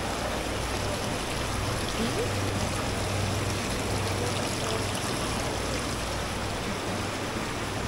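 Steady rush of running water over a low, steady hum.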